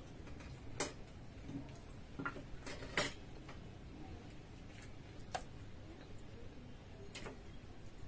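Quiet eating at a table: six or seven short, sharp clicks and taps of cutlery on plates and mouth sounds while chewing. The loudest come about a second in and about three seconds in.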